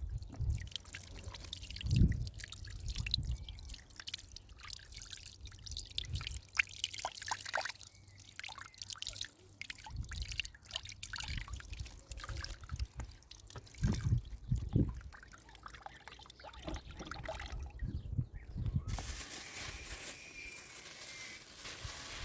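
Water trickling and dripping, with many small clicks and knocks and a few low thumps. About nineteen seconds in, it turns into a steadier hiss.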